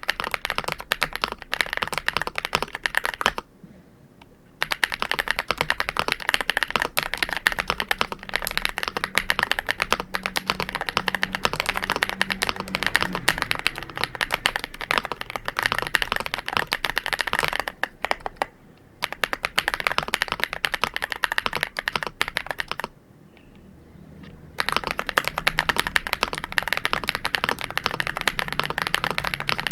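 Fast, continuous typing on an MCHOSE GX87 mechanical keyboard with Matcha Latte switches: a dense run of key clacks, broken by three short pauses, about four seconds in, past halfway, and around twenty-three seconds in.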